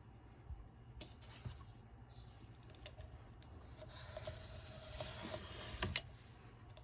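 Light taps of handling, then a craft knife drawn along a metal ruler, scraping through paper for about two seconds and ending in a sharp click.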